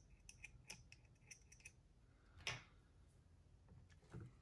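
Faint small clicks and ticks of small parts and tools being handled on a workbench, with one louder short scrape about two and a half seconds in.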